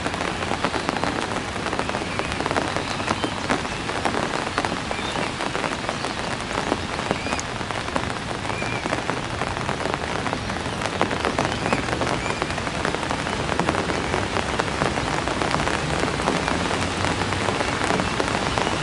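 Heavy rain falling steadily: a dense patter of countless drops hitting the ground and water.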